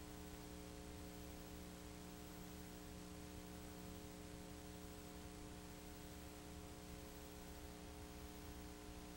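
Steady low electrical hum with faint hiss and no other sound: the background noise of an unsoundtracked film transfer rather than any motorcycle.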